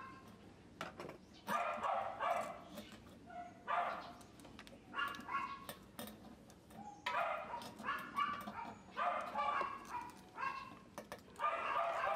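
A dog barking in repeated short bursts, with a few faint clicks.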